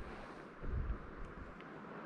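Light wind buffeting the microphone, a low rumble that swells about half a second in, over a faint steady hiss.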